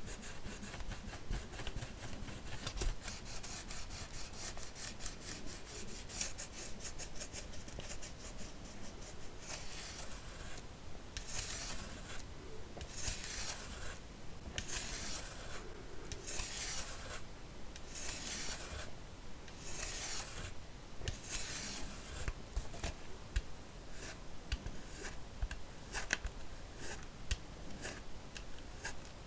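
Empty plastic kvass bottle being scratched and rubbed: fast fine scratching at first, then about eight slower rubbing strokes, each about a second long, and scattered light taps and clicks near the end.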